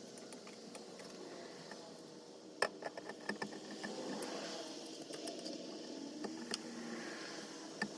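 Scattered sharp metal clicks and rattles from car jacks and chains being worked under a concrete slab, the loudest about a third of the way in followed by a quick run of smaller clicks, over a steady background hum.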